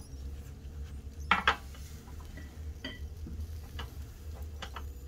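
A frying pan and utensils knocking against each other and the camping stove: two sharp knocks about a second in, then a few lighter clicks, over a steady low hum.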